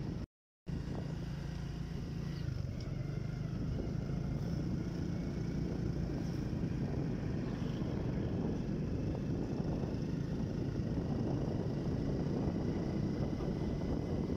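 Car engine and tyre noise heard from inside the cabin while driving at a steady speed. The sound cuts out completely for under half a second near the start.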